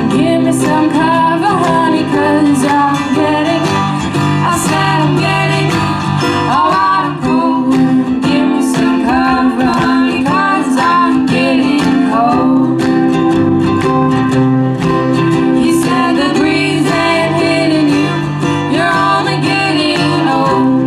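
A bluegrass and old-time family string band playing live: strummed acoustic guitar under a lead melody line that bends in pitch, with singing.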